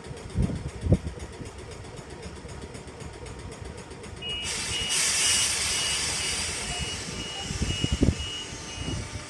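Electric train's door-closing warning: short, evenly spaced electronic beeps, about two a second, set off about four seconds in together with a sudden loud hiss of released air. Low thumps sound near the start and again near the end.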